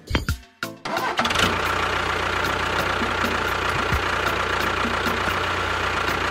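A couple of light clicks as a pin drops into a toy tractor's trailer hitch, then about a second in a tractor engine starts and runs steadily with a low hum and a steady whine.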